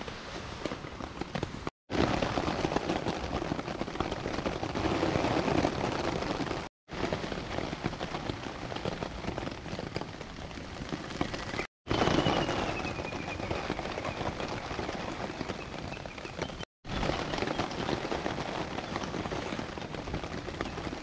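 Steady rain falling on a tarp overhead, an even patter broken by brief silent gaps about every five seconds.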